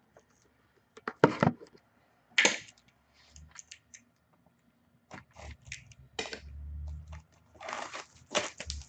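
Hands handling a sealed box of hockey card packs: scattered sharp clicks and bursts of crinkling cardboard and plastic wrapper, with a longer stretch of crinkling near the end.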